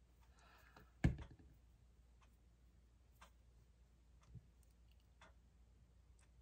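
Faint, scattered taps and clicks of small leaf embellishments being handled and pressed onto a scrapbook layout, with one louder tap about a second in and a brief soft rustle just before it.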